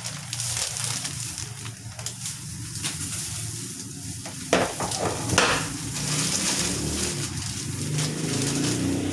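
Clear plastic packaging bags and plastic gloves crinkling and rustling as they are handled, with a couple of louder crackles about halfway through.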